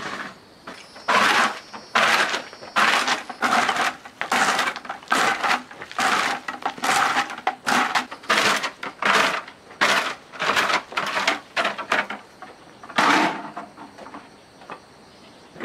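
Rough scraping strokes of hand work, repeated about twice a second with short pauses, stopping a couple of seconds before the end.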